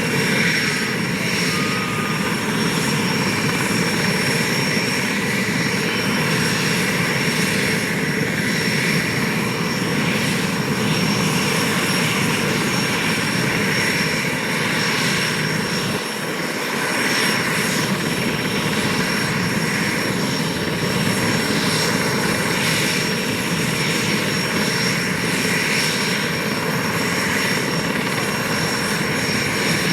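SA-330L Puma helicopter's turbine engines running at ground idle with the rotor turning: a steady, loud turbine whine over rotor and exhaust noise.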